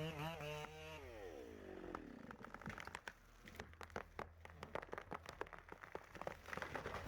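Chainsaw engine running, then dropping in pitch and winding down about a second in, followed by a long run of irregular crackling and snapping of wood.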